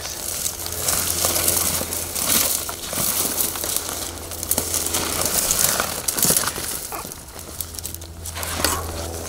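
Footsteps crunching and rustling through dry leaves, twigs and brush on the forest floor, an irregular run of crackles. A steady low hum runs underneath.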